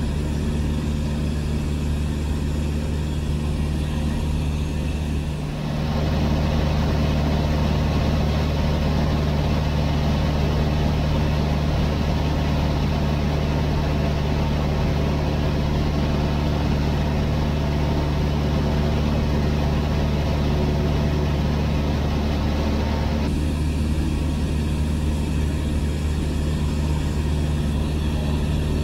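Cessna 152's four-cylinder Lycoming engine and propeller droning steadily in cruise flight, heard inside the cabin. A brief dip about six seconds in, after which the hiss over the drone grows stronger, then falls back again about five seconds before the end.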